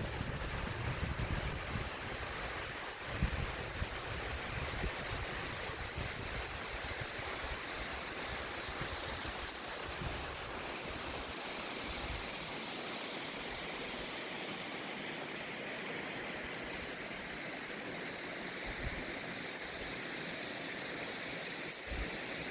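Steady rushing of a 150-metre waterfall's falling water, with wind buffeting the microphone in the first several seconds.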